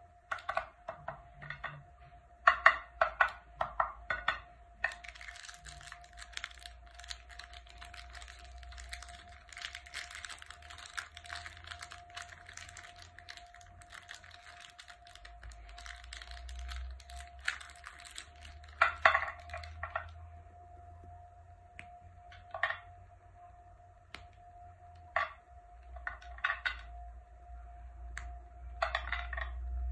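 Shiny plastic chocolate-bar wrappers crinkling and tearing as they are opened by hand. A string of sharp crackles comes first, then a long stretch of dense crinkling, then scattered crackles near the end.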